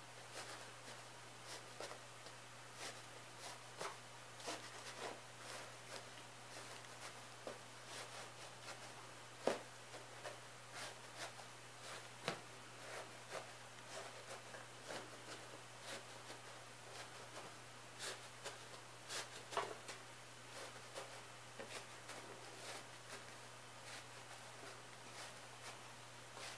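Soft, irregular taps and scratches of a metal utensil pressing dry pine and cedar shavings down into cardboard toilet-paper tubes, a few sharper knocks among them.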